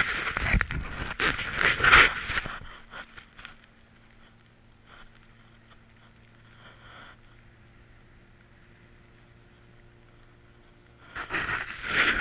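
Rushing wind and movement noise on an action camera's microphone. It goes quiet after about three seconds and picks up loudly again near the end.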